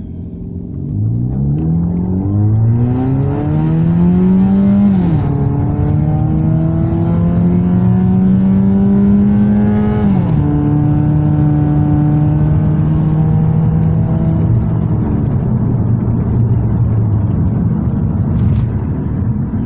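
Car engine with a muffler delete, heard from inside the cabin with the windows rolled up, accelerating from a stop through the gears. The exhaust note rises in pitch, drops at an upshift about five seconds in, rises again, drops at a second upshift about ten seconds in, then holds steady and eases off.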